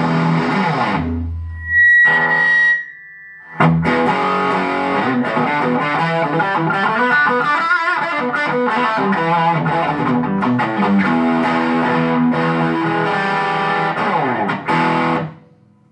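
Electric guitar played through a Boss BD-2 Blues Driver overdrive pedal, distorted notes and chords, with a short break about three seconds in where a single high note rings on. The playing stops just before the end.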